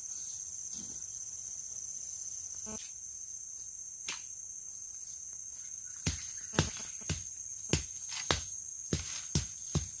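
Insects droning steadily at a high pitch. From about six seconds in, a run of sharp chopping strikes, roughly two a second, as a hand tool hacks at the ground and undergrowth.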